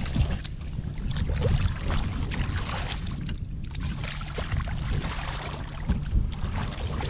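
Shallow muddy water splashing and sloshing as hands dig and grope through the mud, with many short wet splashes. Wind rumbles on the microphone throughout.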